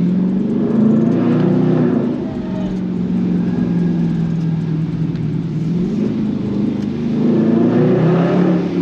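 Dodge Charger Scat Pack's 392 Hemi V8 under acceleration: the engine note climbs in the first two seconds, settles to a steady pitch, then climbs again near the end.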